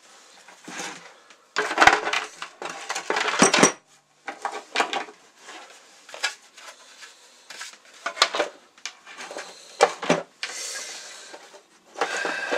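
Hard plastic parts of a Truma Therme water heater being handled and fitted together: irregular knocks, clicks and rattles as the outer casing cover is put back on over the tank.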